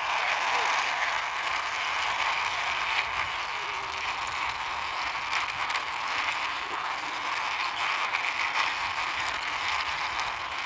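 Toy power backhoe pushed along by hand, its plastic wheels and gears giving a steady, rapid clicking rattle.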